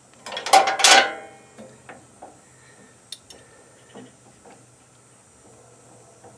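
Steel wrenches clinking and clattering against each other and the metal guard bracket, a short run of sharp ringing clanks about half a second in, followed by a few faint ticks.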